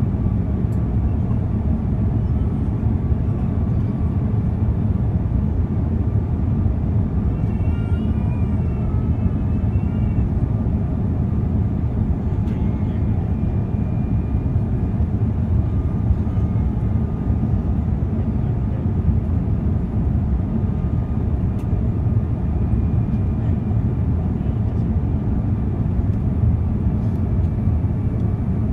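Airliner cabin noise during descent, heard from a window seat: a steady low rumble of jet engines and airflow over the fuselage.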